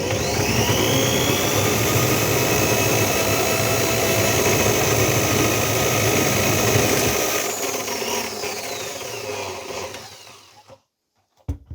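RIDGID K-45 hand-held drum drain snake's electric motor speeding up, running steadily for about seven seconds, then winding down and stopping about a second before the end.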